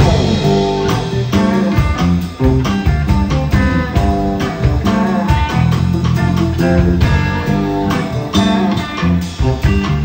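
Live band music led by an archtop hollow-body electric guitar, amplified, playing quick picked notes over a bass line.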